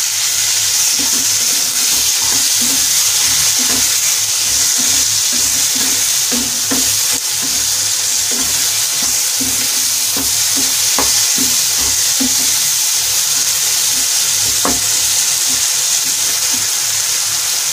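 Chopped tomatoes and onions sizzling in hot oil in a non-stick kadhai while a wooden spatula stirs and scrapes through them, with a steady frying hiss and a few sharp taps of the spatula against the pan.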